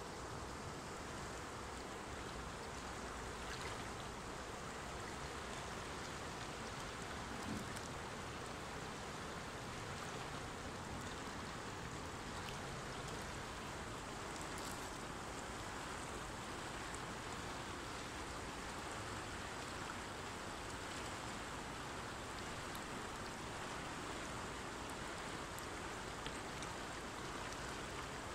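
The fast-flowing Swat River: a steady wash of moving water.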